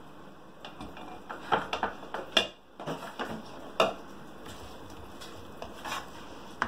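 Kitchen utensils knocking and clinking: a ladle, a glass pan lid and a spatula set down against a bowl, the stovetop and a frying pan, a run of sharp clinks and knocks in the first four seconds. A softer scrape comes near the end as the spatula goes into the pan of thick chutney.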